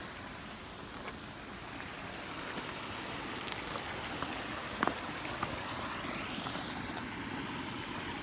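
Steady rush of flowing water, with a few faint clicks about halfway through.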